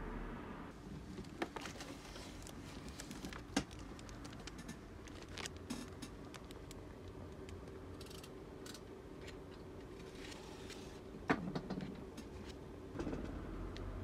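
Pages of an illustrated art book being flipped and handled: paper rustling with scattered small taps and clicks, two sharper clicks near the middle and about three quarters through, over a faint low hum.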